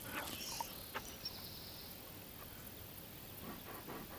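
Insects chirring in summer grass: a faint, steady high-pitched drone with a soft pulse about twice a second, and a few light clicks in the first second.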